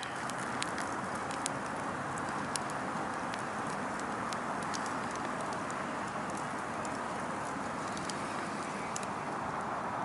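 Wood campfire burning: a steady hiss with scattered sharp crackles and pops.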